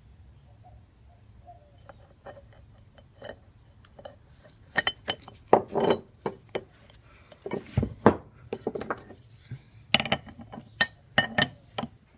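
Metal clinks and clanks of a Stanley door-closer arm being tried against the closer's fittings: an irregular string of sharp clicks, faint at first and louder from about halfway, in several clusters. The arm does not fit.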